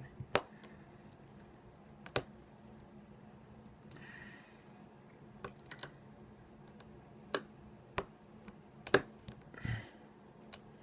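Sharp, irregular clicks of lock picks and tension tool working the pins of an ASSA 700 lock cylinder, about nine clicks spread unevenly with quiet gaps between them.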